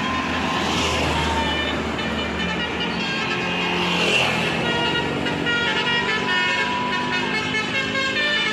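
Basuri telolet multi-tone bus horn playing a tune of held notes that change pitch every second or so, with the bus's engine running underneath.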